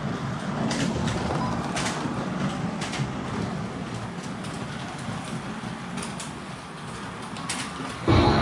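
Carrera Digital 132 slot cars running on the plastic track, a steady whirring from their small electric motors and the wheels in the slot, with a few sharp clicks along the way. A much louder rumble cuts in just before the end.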